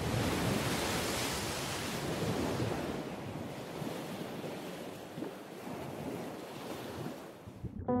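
Sea waves breaking in a shallow surf zone: a steady rushing wash that slowly fades and cuts off abruptly near the end, where soft piano notes come in.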